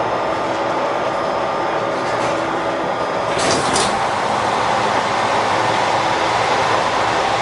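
Passenger door of a JR Shikoku 2000 series diesel railcar opening at a station stop: a short hiss of air about three and a half seconds in as the door slides open, over the steady hum of the railcar standing with its engine running.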